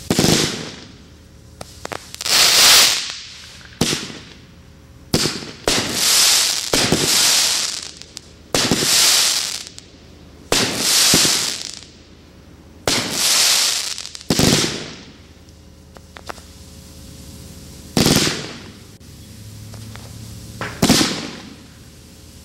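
AAH Fireworks 'Magic' 500-gram aerial repeater cake firing shot after shot, about a dozen in all. Each sharp bang is followed by a hissing, crackling tail that fades over a second or two, with a short lull about two-thirds of the way through.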